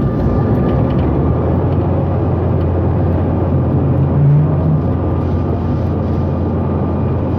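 Steady cabin noise inside a CRJ900 regional jet, its rear-mounted turbofan engines and airflow running as a constant low rumble, with a brief low hum swelling about four seconds in.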